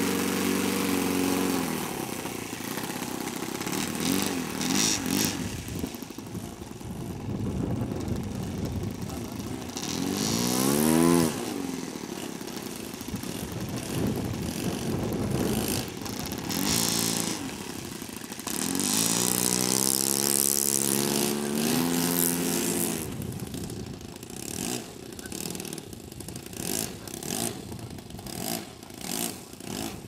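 A model airplane's Saito FA-62 four-stroke glow engine running under changing throttle. Its pitch rises and falls, with a quick rev about ten seconds in and a higher, steadier run about twenty seconds in before it drops back.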